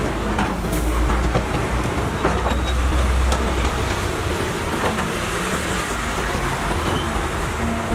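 Diesel engine of a CAT 320 hydraulic excavator running under load, with a deep drone that swells about two seconds in and scattered metallic clanks and knocks from the working machine.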